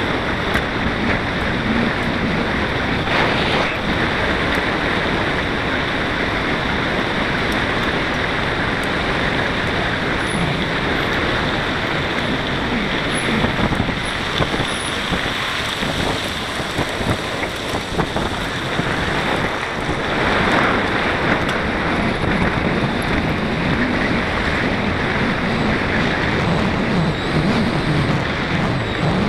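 Steady wind noise on the microphone of a moving bicycle, mixed with the rolling noise of its tyres on a gravel track.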